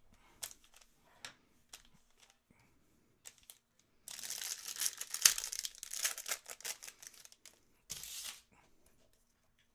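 Foil wrapper of a Panini Certified football card pack being torn open and crinkled: a dense tearing rustle of about three and a half seconds starting about four seconds in, then a shorter crinkle near the end. Before it, light scattered taps and clicks of cards and packs being handled on a table.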